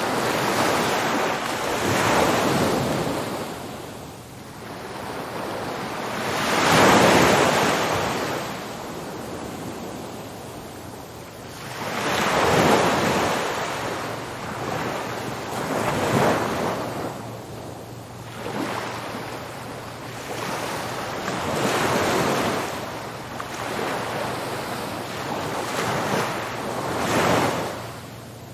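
Ocean waves breaking on a beach, the surf swelling and falling away every few seconds, with some wind on the microphone.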